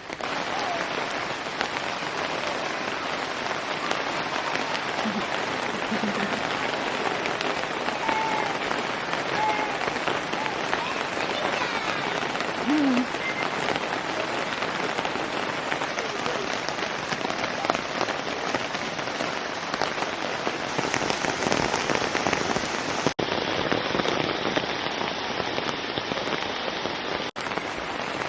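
Steady rain falling on a surface, a continuous even hiss of drops.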